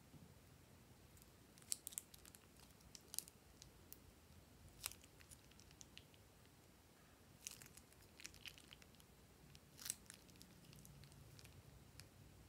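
Very quiet, scattered soft clicks and crackles of a plastic piping bag being squeezed while thick glossy slime base oozes out onto a glass dish.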